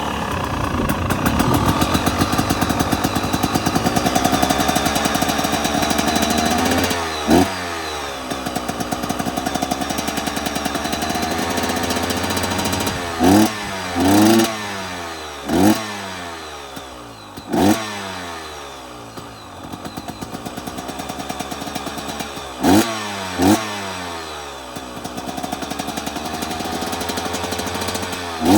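2023 KTM 250 XC two-stroke dirt bike engine, just started and running through an FMF Turbinecore 2.1 silencer. It holds a steady fast idle for about seven seconds, then gets a run of sharp throttle blips, some in quick pairs, each rev falling back to idle.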